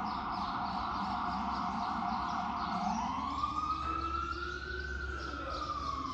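Emergency vehicle siren wailing, its pitch rising slowly for a couple of seconds and then falling, over a steady low rumble.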